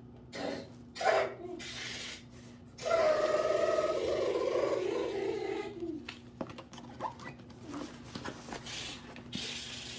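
A recycled-nylon tote bag being handled, its fabric, woven webbing handles and paper tag rustling and rubbing with scattered short scrapes and clicks. The loudest sound is a drawn-out pitched sound of about three seconds from about three seconds in, which falls in pitch as it ends.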